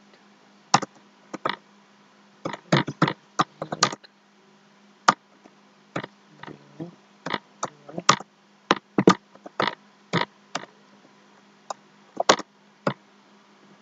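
Computer keyboard typing: sharp, uneven keystroke clicks, some single and some in quick runs, over a faint steady low hum.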